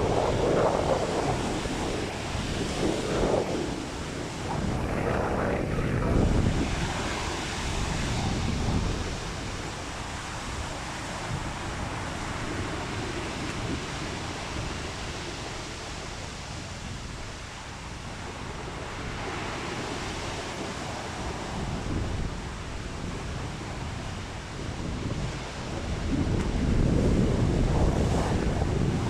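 Rough sea surf washing onto the shore under a strong wind, with gusts buffeting the microphone in low rumbles, heaviest near the start and again near the end.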